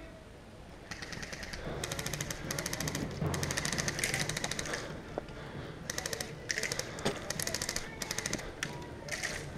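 Airsoft guns firing full-auto in several rapid bursts, one after another.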